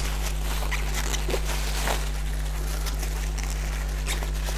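Thin plastic wrapping being pulled and crinkled off a hard camera case in a few faint rustles and clicks, over a steady low electrical hum that is the loudest thing heard.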